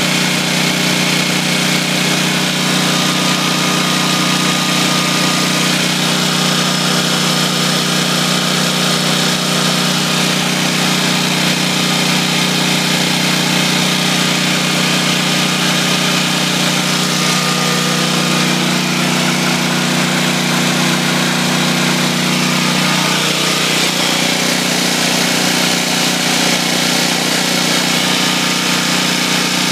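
Generac XG8000E portable generator's engine running steadily at light load, under a third of its rating, with a slight shift in its tone about three-quarters of the way through.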